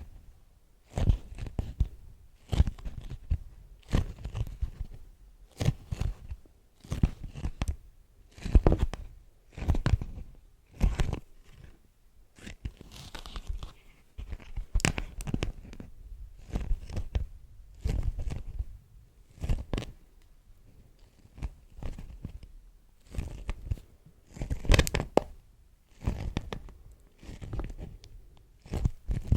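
Beeswax wrap crinkled and pulled apart close to the microphone: crisp, irregular crunches and sticky tearing sounds, roughly one every second, with short pauses between them.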